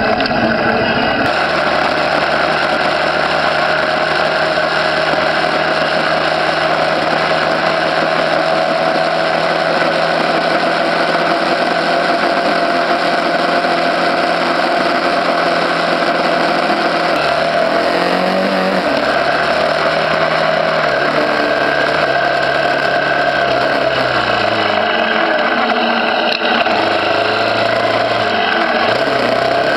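Motorbike engine running while riding, under a steady rush of wind noise. Its low tone steps and swings up and down through the second half.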